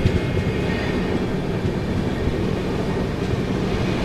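Steady low rumble of a double-decker express train running slowly, heard from inside the coach.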